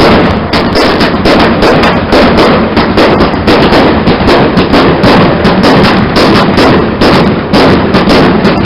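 Fireworks going off in a rapid, continuous barrage of loud bangs and crackles, several a second, without pause.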